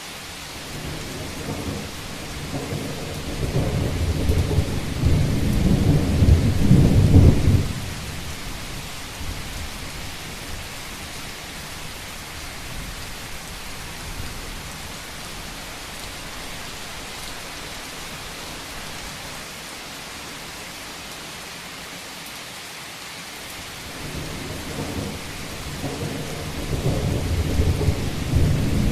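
Steady rain falling on a rooftop, with two long rolls of thunder. The first builds over the first several seconds and stops abruptly; the second rises near the end.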